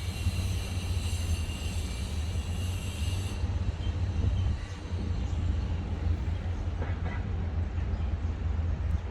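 Outdoor city ambience: a steady low rumble of distant traffic and construction under the hiss of fountain water. A bright high hiss cuts off suddenly about three seconds in, and a faint short chirp comes near the end.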